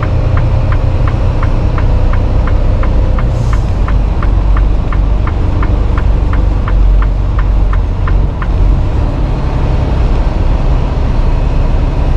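Inside a semi-truck cab: a steady low rumble of the diesel engine and road noise, with a turn signal ticking about three times a second that stops about eight seconds in.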